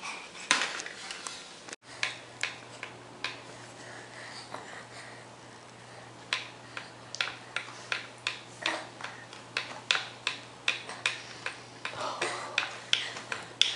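A crawling baby's hands slapping down on a play mat: a series of short, sharp pats, about two or three a second in the second half.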